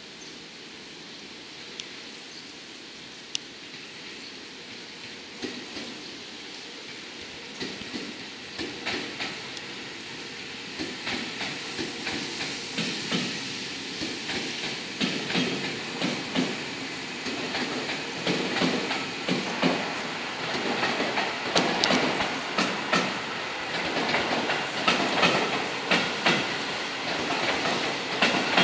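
Seibu 30000 series electric train (set 38105F) rolling past over points and rail joints, its wheels clacking. The clacks start faint a few seconds in and grow louder and more frequent as the train comes closer.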